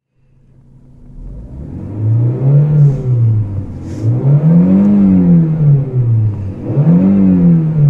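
Renault Mégane 2's 1.6-litre four-cylinder petrol engine idling, then revved three times, each rev rising and falling in pitch, while standing still with an aftermarket or stock air filter in the intake.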